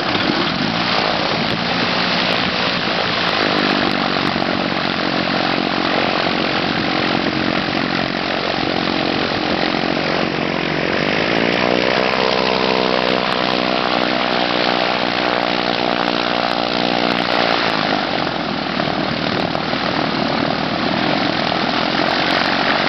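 Light propeller aircraft engines running on an airfield. From about ten seconds in, a stronger engine note rises in pitch and holds, then drops away a few seconds later as a plane flies past overhead.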